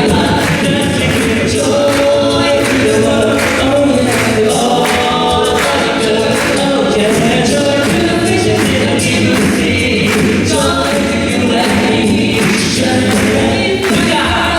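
A cappella group singing in several-part harmony, with vocal percussion keeping a steady beat of about two hits a second.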